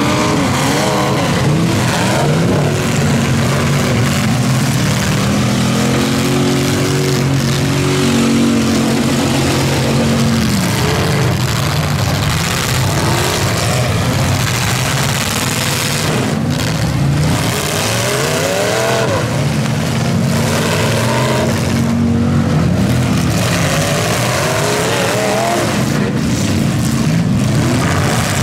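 Several demolition derby pickup trucks' engines revving hard and running together, their pitch repeatedly rising and falling as they accelerate and back off, over a constant haze of engine and tyre noise.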